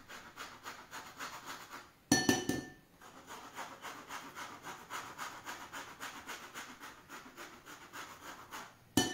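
Orange zest being grated on a hand grater: quick, rhythmic rasping strokes. A sharp, ringing clink about two seconds in and again near the end, each followed by a short pause in the grating.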